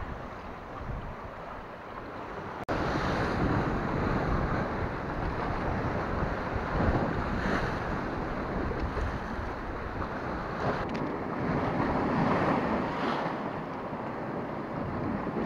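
Sea surf washing and breaking against rocks, with wind buffeting the microphone. About two and a half seconds in, the sound jumps suddenly louder, and it then rises and falls in swells as waves come in.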